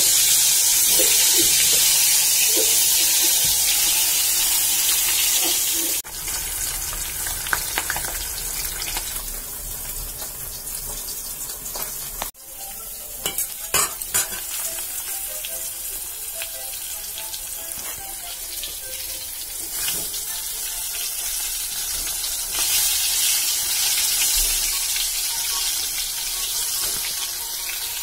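Pieces of food frying in hot oil in a kadai, a steady sizzle. It is loudest for the first six seconds, then drops off suddenly to a quieter sizzle, with a few sharp clicks near the middle, and grows louder again near the end.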